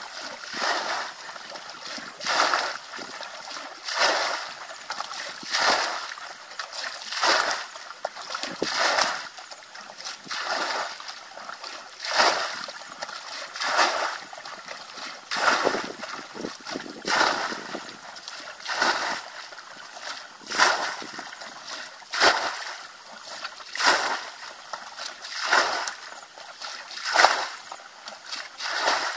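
Plastic bucket bailing muddy water from a shallow channel: a scoop and a splash of thrown water about every one and a half seconds, in a steady rhythm.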